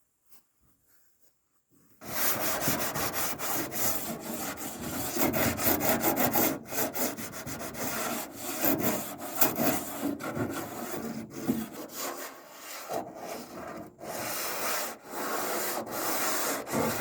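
Sandpaper worked by hand over the steel body of a 1978 Ford pickup, taking off the old paint: quick back-and-forth scraping strokes that start about two seconds in and go on with a few short pauses.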